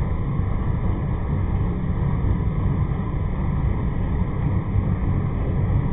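A machine running steadily: a loud, even mechanical rumble with a faint hum in it.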